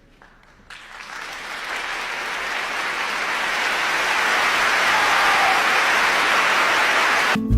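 Applause building steadily louder, cut off near the end by strummed acoustic guitar music.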